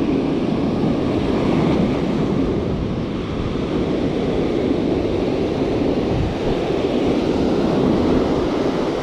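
Ocean surf breaking and washing on a beach in a steady, loud rush, with wind buffeting the microphone.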